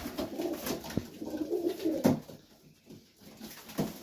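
Domestic pigeons cooing, a low warbling coo repeating through the first half and thinning out after about two seconds, with a couple of faint ticks.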